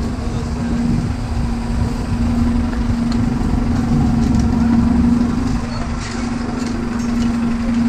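City road traffic with a steady hum under a wash of street noise, typical of vehicles idling and passing.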